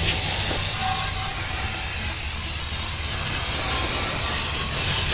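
Aerosol can of brake cleaner spraying in a long, steady hiss onto a transmission pan.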